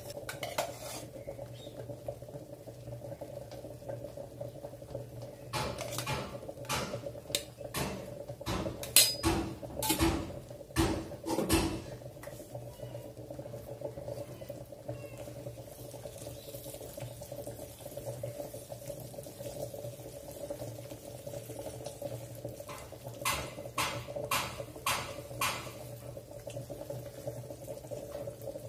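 A spatula scrapes and stirs thick roasting gram flour and ghee in a stainless steel pan. It knocks against the pan in two clusters, the first about six to twelve seconds in and a shorter one near the end. A steady low hum runs underneath.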